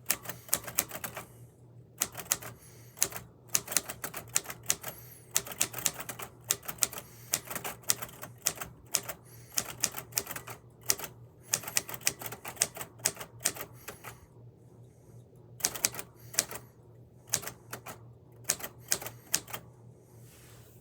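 Typewriter keys struck in quick runs of sharp clacks with short breaks between them, typing out a test sentence that uses every letter.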